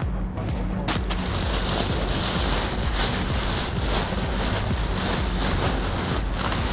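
Wind buffeting the microphone: a loud, steady rushing noise with a low rumble, its hiss filling in about a second in.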